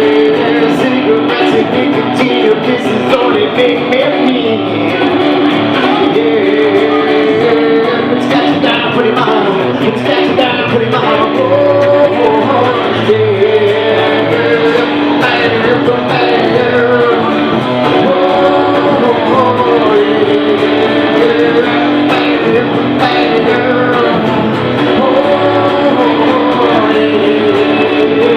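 Live blues-rock music led by electric guitar: a wavering lead line over steady strummed chords.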